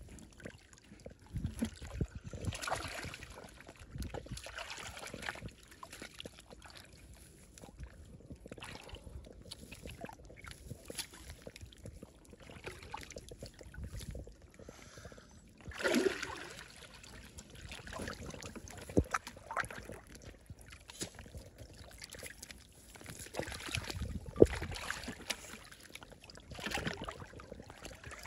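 Water sloshing and splashing in irregular bursts as hands work in shallow stream water while catching fish by hand. A single sharp knock stands out about three-quarters of the way through.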